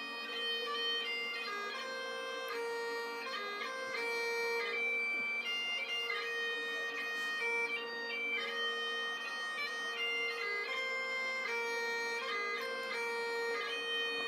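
Solo Highland bagpipes playing a tune over a steady unbroken drone, heard through a television's speakers.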